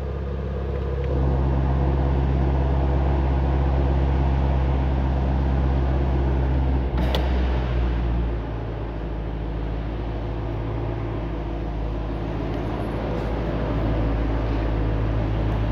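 2017 Ford Mustang Shelby GT350's 5.2-litre flat-plane-crank V8 idling steadily. It gets a little louder about a second in as the exhaust is switched from normal to sport mode. There is a single click about seven seconds in, and the idle eases down slightly after about eight seconds.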